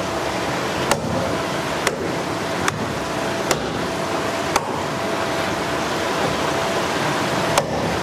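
Meat cleaver chopping through a white-streaked grouper on a chopping block: six sharp chops, about one a second, with a longer pause before the last one near the end, over a steady background hiss.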